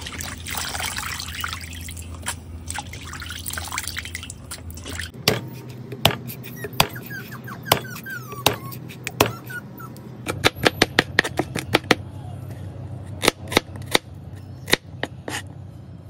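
Hands rubbing and swishing raw chicken gizzards in water in a metal colander. About five seconds in this gives way to a wide kitchen knife chopping garlic on a cutting board: sharp knocks, some in quick runs.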